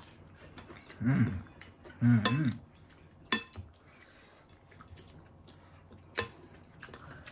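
Metal spoons clinking and scraping on a plate of rujak, with a few separate sharp clicks in the second half, and two short vocal sounds in the first few seconds.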